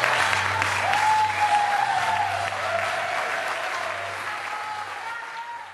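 Audience applauding, the clapping gradually dying away toward the end.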